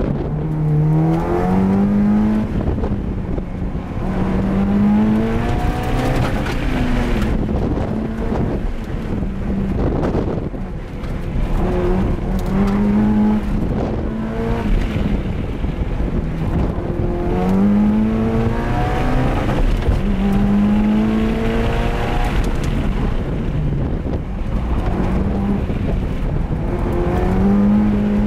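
Mitsubishi Lancer Evolution's turbocharged four-cylinder engine heard from inside the cabin during a hard autocross run. It revs up and eases off over and over, climbing in pitch for a second or two and then dropping back, every few seconds.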